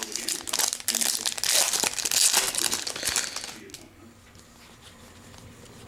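Trading-card pack wrapper crinkling as it is opened and handled, stopping about three and a half seconds in.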